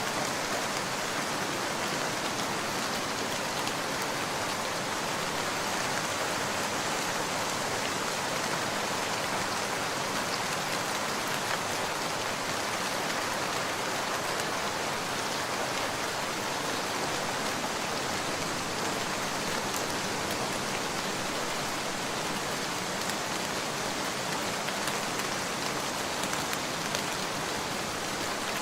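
Steady rain falling on surfaces: an even hiss of drops with a few faint individual drop ticks.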